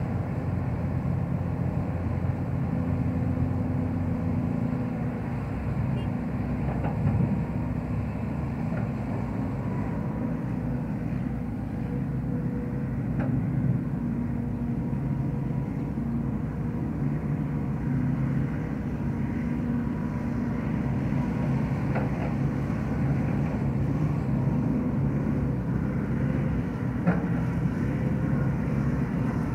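Diesel engine of a Sumitomo hydraulic excavator running steadily as it swings and digs into dirt, with a few faint knocks.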